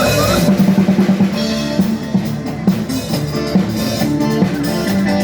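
Loud recorded music with a drum kit played through a PA sound system during a sound check, opening with a rapid run of drum hits and settling into a steady beat.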